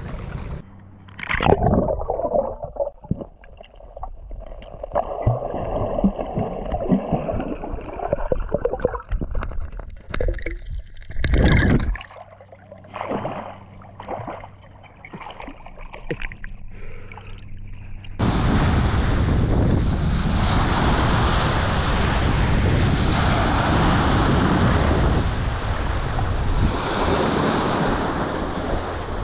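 Sea water sloshing and splashing around the camera as it dips in and out of the water, with sharp splashes about a second and a half in and again around eleven seconds. About eighteen seconds in it changes suddenly to a steady, loud rush of surf and wind on the microphone.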